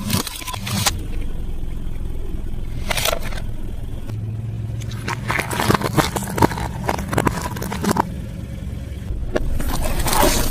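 Close-miked eating sounds: irregular crunching and crackling bites and chewing of fried food, with clicks and scrapes, over a steady low hum. The crunching is densest about halfway through.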